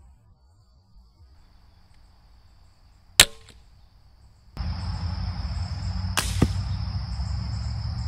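Slingshot crossbow fired: a sharp, loud snap of the released string about three seconds in, with a short ring after it. Then, heard from the target end over a steady insect drone and a low rumble, a second crack of the shot a little after six seconds, followed a quarter second later by a fainter knock as the arrow hits the target.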